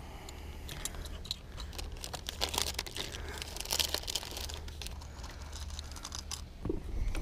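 Clear plastic tackle boxes being opened and rummaged through: plastic lids and trays clicking, with hooks and lures rattling inside. The clatter is busiest in the middle.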